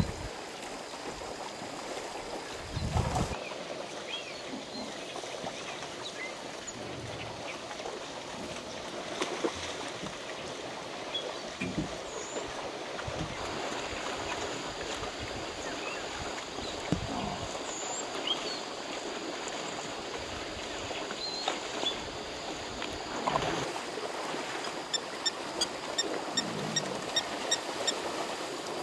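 Cape buffalo herd drinking and wading in a shallow river: water sloshing and splashing under their hooves, with a few louder splashes and knocks. Near the end, a run of short, high-pitched chirps about twice a second.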